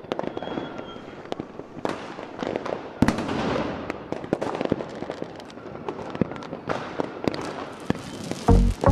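Fireworks display: a continuous run of aerial shell bangs and crackles, with one heavier bang about three seconds in followed by a dense stretch of crackling. Near the end, loud music with a deep bass cuts in.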